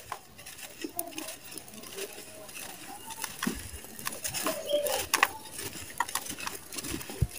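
Clumps of dry soil crumbled between bare hands and sifting back into a plastic tub: an irregular scatter of soft gritty crackles and trickling, with a few sharper crunches.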